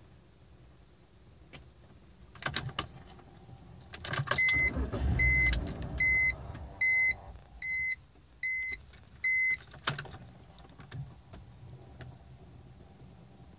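A 2005 BMW 325i that won't start: a click, then about two seconds of low rumble as a start is tried and the engine does not catch, while a dashboard warning chime beeps seven times, a little under once a second. Another click comes near the end.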